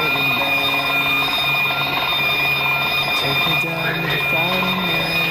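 An alarm ringing loudly and continuously, a steady ringing of several fixed high tones over a low hum.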